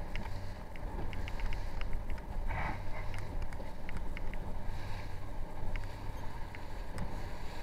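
Waves slapping and splashing against an inflatable boat's hull in choppy water, with wind on the microphone and a low steady hum underneath; one louder splash about two and a half seconds in.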